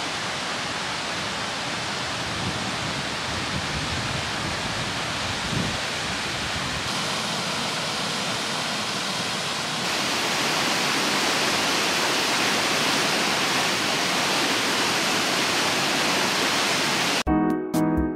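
Steady rushing of water from a shallow rocky river and a wide, low waterfall of many small cascades, growing louder about ten seconds in. Piano music starts about a second before the end.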